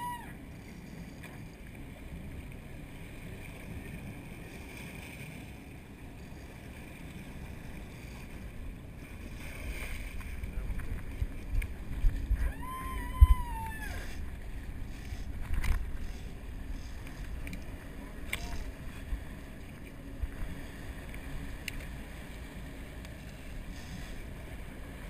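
Steady low rumble of a sportfishing boat and the sea, with wind on the camera's microphone. Around the middle come several dull knocks and one short yell as the crew hauls the leader on a marlin alongside.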